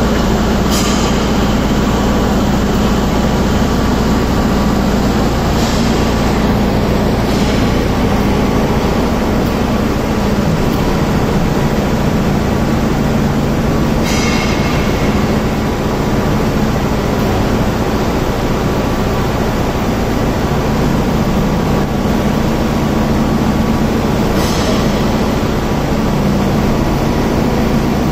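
Single-girder electric overhead crane travelling along its runway: a steady rumble and hum of its travel drive and wheels on the rails, with a few brief high-pitched squeaks along the way.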